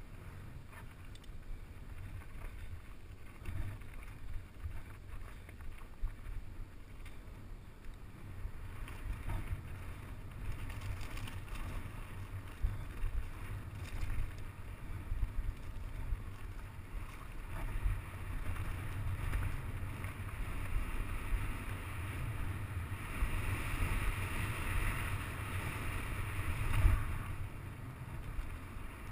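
Mountain bike descending rocky, loose singletrack, heard from an action camera: wind buffeting the microphone over a low rumble, with tyres crunching on stones and the bike rattling over bumps. The noise grows louder toward the end, with a sharp knock near the end.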